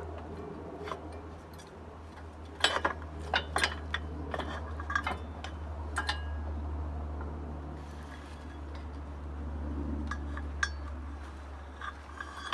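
Metal parts and tools clinking and knocking in a quick cluster a few seconds in, with a few scattered clinks later, over a steady low hum.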